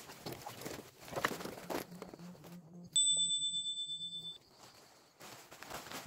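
Splashing and dripping of hands being rinsed in pond water, with a few sharp splashes. About halfway through comes a single clear, high metallic ding that fades out over about a second and a half.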